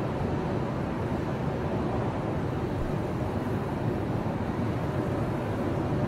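Ocean surf breaking and washing onto a sandy beach: a steady low rush of waves with no separate crashes standing out.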